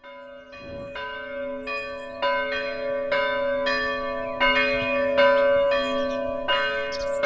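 Bells struck about a dozen times at uneven intervals, each ringing on under the next, growing steadily louder.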